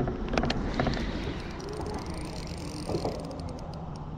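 Steady low hum aboard a small fishing boat, with a few sharp clicks, two of them in the first second.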